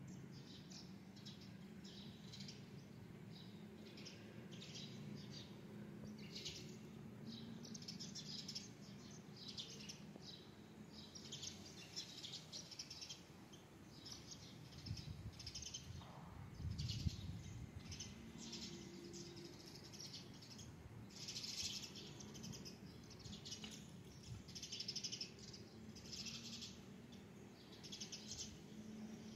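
Small birds chirping in short, high, repeated chirps throughout, over a faint steady low hum, with a soft low thud a little past the middle.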